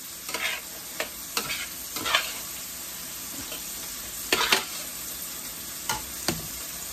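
Fried rice sizzling in a stainless steel sauté pan as a metal spatula stirs and scrapes it, with a scrape about every second over the steady frying hiss. The loudest is a quick pair of scrapes a little past the middle.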